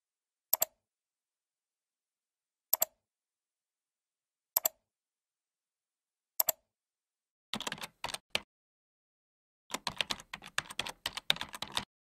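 Computer mouse clicks, four of them about two seconds apart, each a quick press-and-release, followed by typing on a computer keyboard: a few keystrokes, then a fast run of keys near the end.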